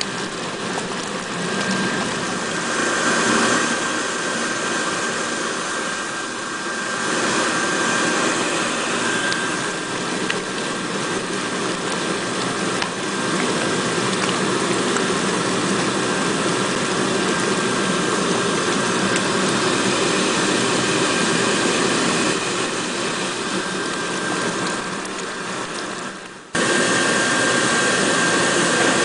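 Induction cooker running: a steady whirring noise with a thin high whine over it. Near the end it drops away, then cuts back in abruptly.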